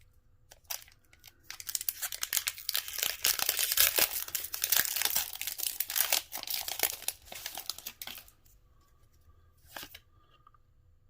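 Foil wrapper of a Pokémon booster pack crinkling and tearing as it is ripped open, a dense crackling that lasts several seconds, with a few single crinkles before and after.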